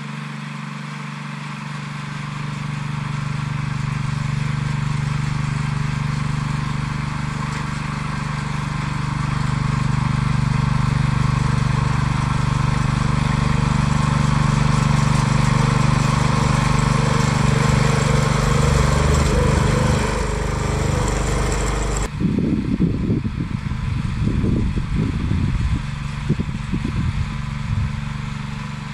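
Walk-behind tractor engine running steadily under load while pulling a plough through the soil, growing louder as it comes close and then fading as it moves away. About two-thirds through, an uneven low rumble abruptly takes over.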